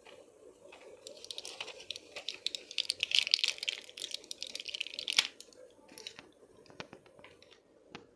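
Crinkling and clicking of medicine packaging as tablets are taken out of their wrapping: a dense run of crackles for about four seconds, then a few scattered clicks.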